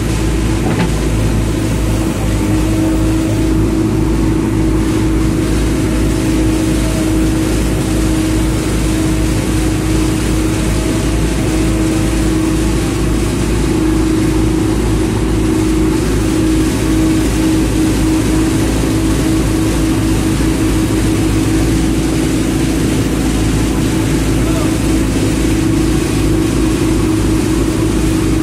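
JCB backhoe loader's diesel engine running steadily at a constant speed, with an even hum that holds the same pitch throughout.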